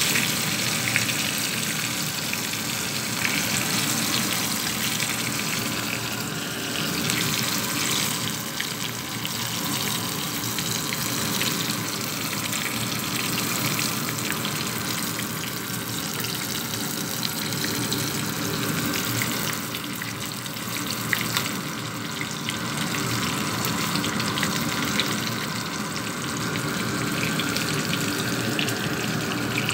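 Whole tilapia deep-frying in hot oil in a pan: a steady sizzle with crackling and an occasional sharper pop.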